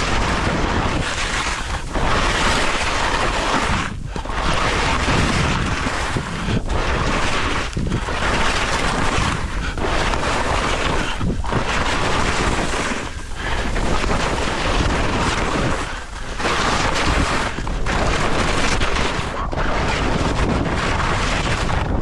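Skis scraping and carving through soft spring corn snow, with a loud rush of snow and wind noise on the microphone that dips briefly between turns, roughly every two seconds.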